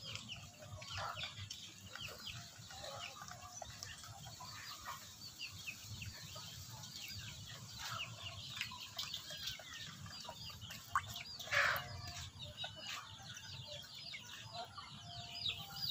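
Chickens clucking and chirping, with many short high chirps several times a second. A brief splash comes about two-thirds of the way through.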